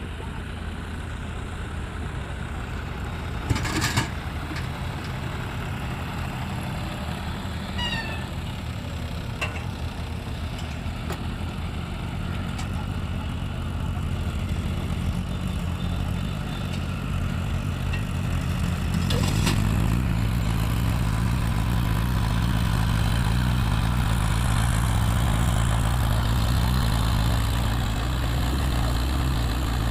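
Tractor's diesel engine running steadily, with a couple of sharp knocks a few seconds in. About two-thirds of the way through it grows louder after another knock.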